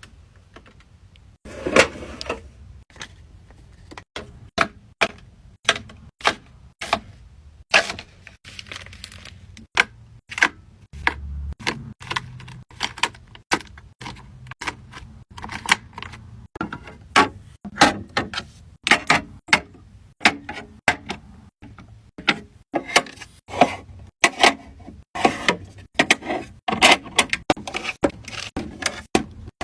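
Skincare bottles and jars being handled and set down one after another: a dense, uneven run of sharp clicks, taps and knocks of small hard containers, with a few brief rustles.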